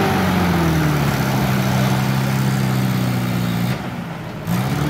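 Nissan 4x4 engine revving hard and held at high revs under load as it pulls on a tow strap in the mud. The revs ease off about three-quarters of the way through and then pick up again near the end.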